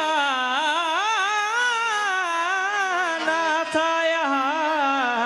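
Qawwali singing: one long melismatic note held on a sung word, its pitch bending up and down in ornaments over a steady lower tone, with a single sharp tap near the end.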